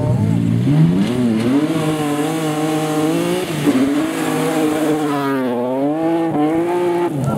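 BMW rally car engine at high revs on a gravel stage, its pitch climbing and falling as the driver changes gear and lifts, with a deeper dip and climb about two-thirds through. It cuts off abruptly near the end.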